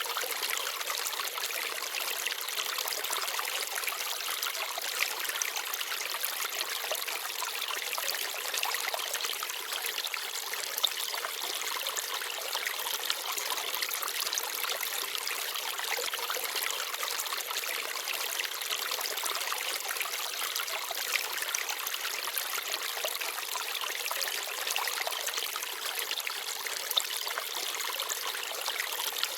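Small forest stream babbling and trickling steadily over stones, a continuous bright splashing with a few slightly louder splashes now and then.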